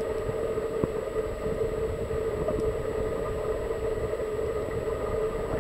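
Muffled underwater sound from a camera held below the surface: a steady hum over a low rumble, with a few faint clicks.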